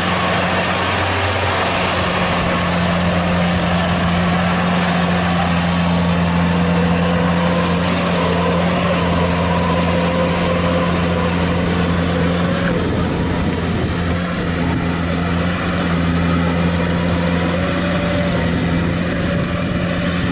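Diesel engine of a Kubota DC-70 rice combine harvester running with a steady drone as the tracked machine drives through deep mud.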